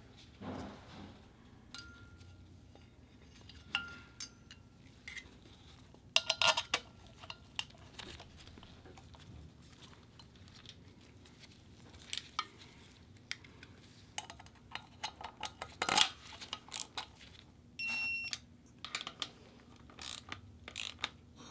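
Scattered metal clinks and taps of hand tools and bolts while a water pump is bolted onto a Subaru EJ-series boxer engine, with a short electronic beep near the end from a digital torque wrench reaching its set torque.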